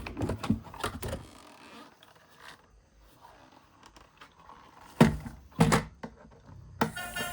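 Handling noises: rustling and small clicks, with two loud knocks about five seconds in. A tune starts near the end.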